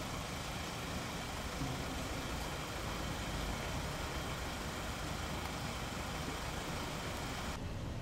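Steady low mechanical hum of running machinery with a constant hiss above it; near the end the hiss drops away suddenly while the hum carries on.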